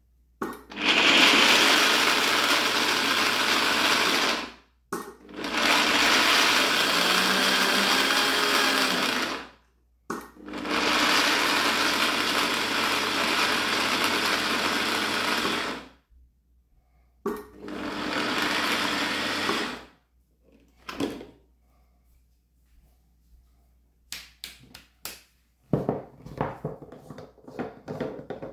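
Food processor motor running in four bursts of several seconds each, with a short blip after them. A few knocks and clatters follow near the end.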